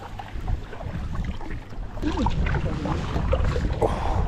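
Tandem kayak paddle strokes: blades dipping and water splashing and dripping off them, with a steady low rumble of wind on the microphone.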